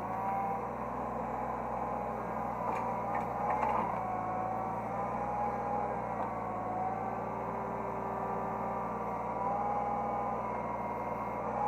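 Hydraulic excavator running, heard from the operator's cab. A steady engine hum carries a whine that wavers slightly in pitch as the hydraulics work, with a few light clicks about three seconds in.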